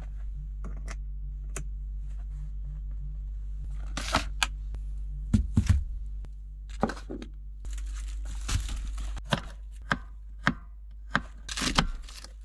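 Knife work on a cutting board: irregular sharp knocks and a few short scraping strokes over a steady low hum.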